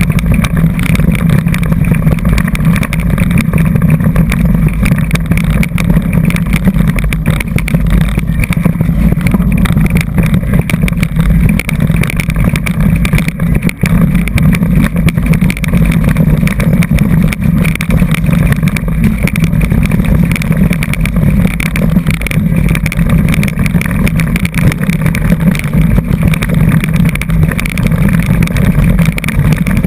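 Continuous low rumble of wind buffeting the microphone of a camera mounted on a mountain bike, with steady knocking and rattling as the bike rides fast over a rough dirt forest trail.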